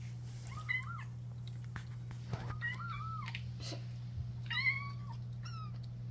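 House cats meowing: four short high calls that rise and fall, the last two close together, over a steady low hum.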